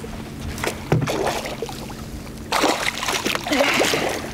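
A pike thrashing and splashing in a landing net at the side of the boat, loudest in the second half, with a sharp knock about a second in. A steady low hum runs underneath.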